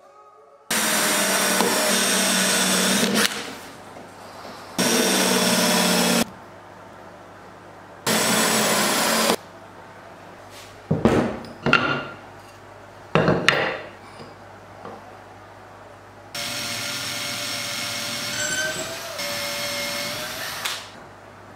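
Cordless drill-driver running in three short steady bursts, then a few sharp knocks, then a longer run of about four seconds that sags slightly in pitch as it drives a screw through the vice jaw into the wooden jaw face.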